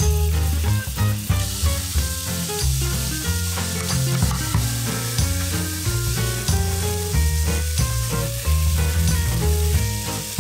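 Chopped onions and garlic sizzling in hot oil in a frying pan and being stirred with a wooden spatula. The sizzle grows louder about a second and a half in. Background music with a steady bass line plays throughout.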